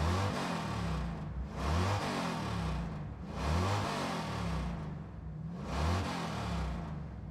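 Sound effect of a car engine revving over and over, its pitch rising and falling about every two seconds.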